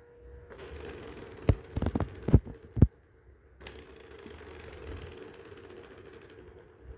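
Plastic ball rolling around the tracks of a tiered cat track-ball toy: a rattle with several sharp clacks in the first three seconds, then a steady rolling rattle that stops about a second before the end.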